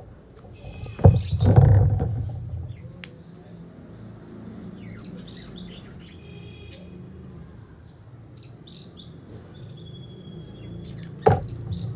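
Small birds chirping in short, scattered calls, with a loud low thud and rustle about a second in and a sharp knock near the end.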